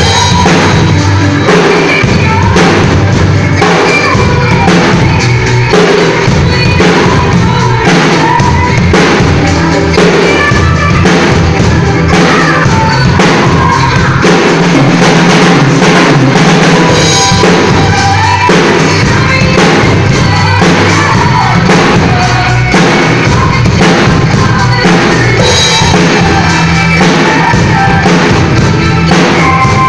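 Yamaha drum kit played loudly along to a recorded song with singing: bass drum, snare and cymbals keeping a steady beat over the backing track.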